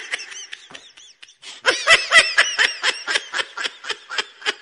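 High-pitched laughter in quick pulses, about four a second, starting about a third of the way in after a short lull.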